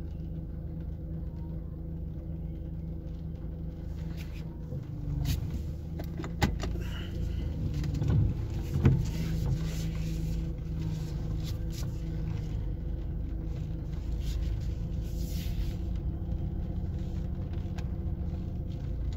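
Car engine idling, a steady low hum heard from inside the cabin, with scattered short taps and knocks through the middle.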